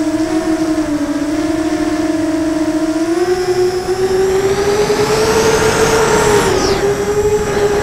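A QAV 250 racing quadcopter's DYS 2300kv brushless motors and propellers whining in flight, heard on board. The pitch holds steady, rises about three seconds in as the throttle goes up, and stays high.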